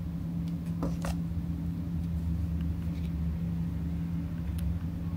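A steady low mechanical hum with a constant pitched drone, and a few faint clicks about a second in and again near the end.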